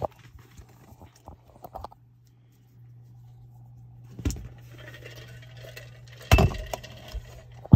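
Small metal items jingling and clinking, with a few sharp knocks; the loudest knock comes about six seconds in.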